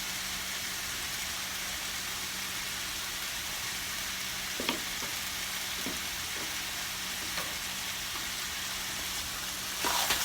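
Chopped chicken thighs and onions frying in a hot pan with a steady sizzle, a few faint knocks in between. Near the end a spoon starts stirring the meat, louder.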